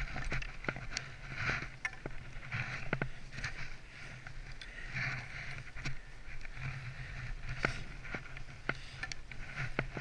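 Skis carving turns through deep powder snow: soft swishes about once a second, with a few sharp clicks and a low steady rumble of movement underneath.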